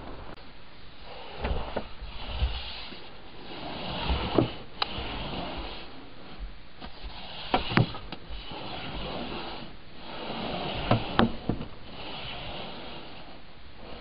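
Snow shovel scraping through packed snow in strokes about three seconds apart, each ending in one or two sharp knocks.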